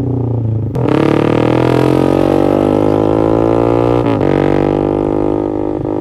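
Yamaha MX King 150's single-cylinder four-stroke engine running through an aftermarket X1 Speed Racing SH-01 racing exhaust while riding. The note breaks under a second in at an upshift, rises steadily in pitch for about three seconds as the bike accelerates, dips again at the next shift about four seconds in, then holds steady.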